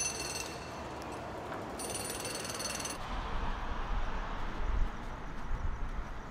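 Street ambience: a thin, high whine comes and goes in the first three seconds. Then, after a sudden change, a low rumble of traffic sets in with faint regular ticking over it.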